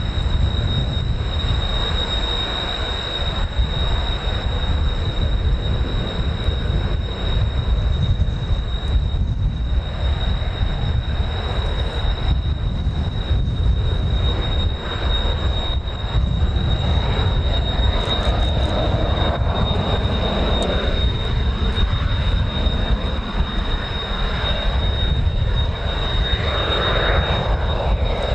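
Kawasaki T-4 jet engines of the Blue Impulse running with a steady high-pitched whine, under a heavy low rumble of strong wind on the microphone.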